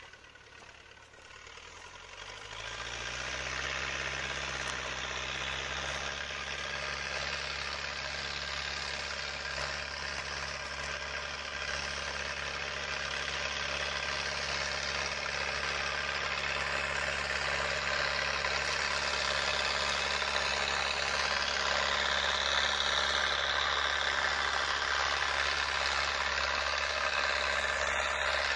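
MTZ 820.2 (Belarus) tractor's four-cylinder diesel engine pulling a plough. Its note rises over the first few seconds, then runs steadily under load, growing slowly louder as the tractor comes closer.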